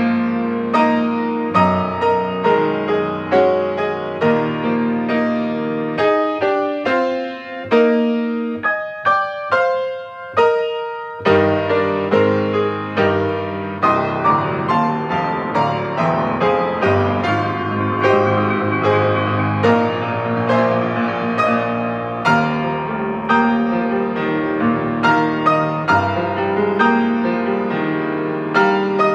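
Solo piano music played at a steady pace, with a sparser passage of separate, higher notes about a quarter of the way in.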